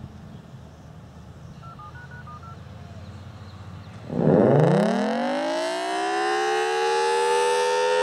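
A few faint, short beeping activation tones, then about four seconds in a Federal Signal Thunderbolt 1003 rotating siren starts up. Its wind-up of several tones rises quickly and levels off into a steady, loud alert tone.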